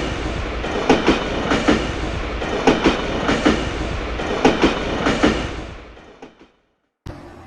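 New York City subway J train running along the track, its wheels clacking over rail joints in regular paired beats. The sound fades away about six seconds in, and after a brief gap a quieter background comes in.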